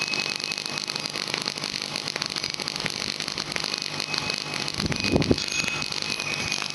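Tesla coil running: a steady buzzing hiss dense with fine crackles, with a brief low noise about five seconds in.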